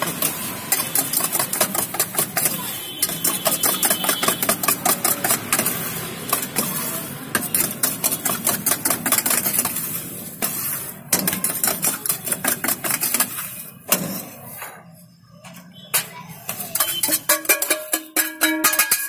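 Steel spoon stirring and scraping crumbly ragi puttu mixture in a stainless-steel saucepan: a fast, uneven run of clinks and scrapes of metal on metal. It eases off briefly a few seconds before the end, then the spoon scrapes again as the mix is tipped out of the pan.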